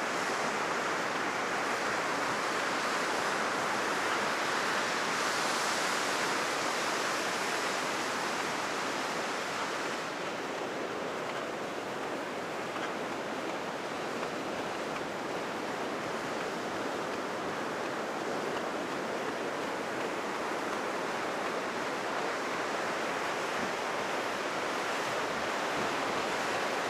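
Heavy ocean surf, raised by a passing typhoon, breaking and washing up a sandy beach as a steady, continuous rush of waves.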